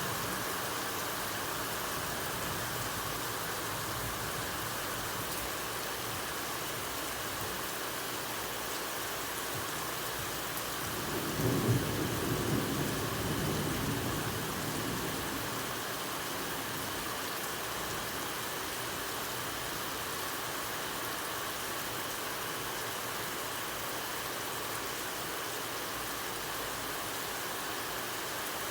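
Steady rainfall hissing throughout, with a roll of thunder rumbling for a few seconds partway through.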